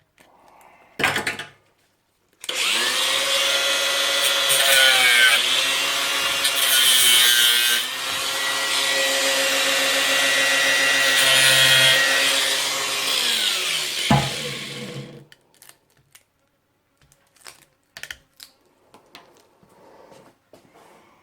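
Electric power tool cutting into the top of a lead-acid car battery at the positive terminal. The motor's pitch dips as it bites, and it winds down about 14 seconds in, followed by a few light clicks and taps.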